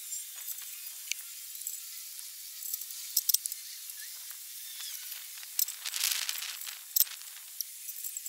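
Small scattered clicks and taps of thermometer probes and their wires being handled and placed on the metal grate inside an offset smoker's cooking chamber, over a faint steady hiss.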